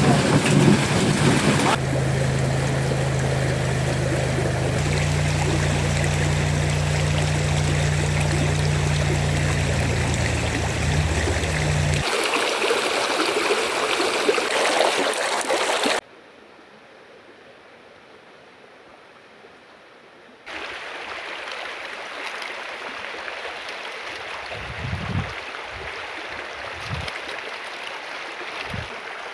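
Rushing water, with a low steady hum under it for about the first twelve seconds. The sound cuts off sharply about sixteen seconds in, leaving a few seconds of quiet, then comes back as quieter flowing water with a few low thumps.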